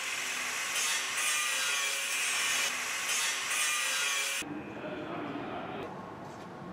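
Abrasive disc on an industrial grinding robot grinding the surface of a steel forging: a steady, harsh hissing grind that cuts off about four and a half seconds in, leaving a quieter, lower machine noise.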